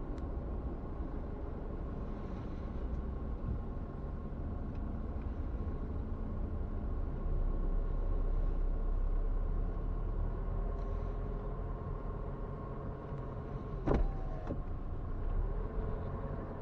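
A car driving slowly, heard from inside the cabin: a steady low rumble of engine and tyres. About fourteen seconds in comes a sharp knock, followed half a second later by a second one.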